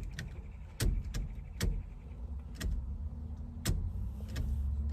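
Scattered sharp clicks and knocks of car light parts being handled and fitted, about six in all, over a low rumble that grows stronger near the end.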